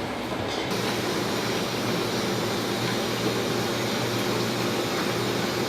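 Steady machine drone with a low hum, like a ventilation fan or air conditioner.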